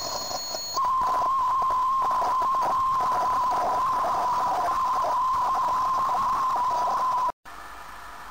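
Metal lathe cutting an internal groove in a turned metal ball with an internal grooving tool: a steady high-pitched whine over the rough hiss of the cut. The whine drops out briefly just after the start, then everything cuts off suddenly about seven seconds in, giving way to a quieter steady hum.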